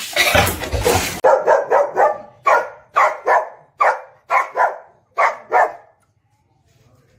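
Dog barking: about a dozen quick, sharp barks, often in pairs, stopping about six seconds in. They follow a second of loud, rough noise.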